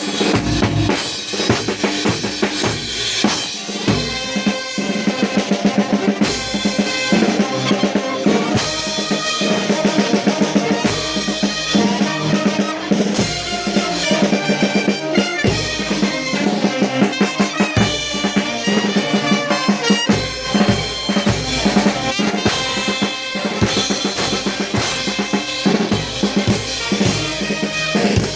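Live band playing a pasacalle: drums keep a fast, steady beat under a melody from wind instruments such as trumpets.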